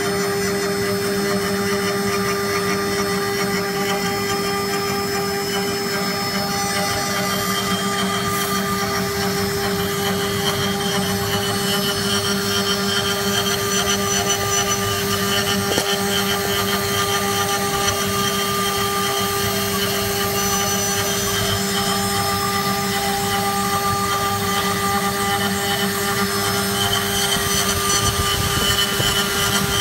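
CNC router spindle carving a wooden workpiece that turns on a rotary axis. A steady whine sits over continuous cutting noise, unbroken throughout.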